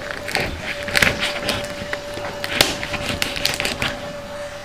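Kitchen knife cutting through dry, brittle smoked fish on a wooden cutting board: irregular crackling cuts and sharp knocks of the blade on the wood, the loudest about a second in and at about two and a half seconds.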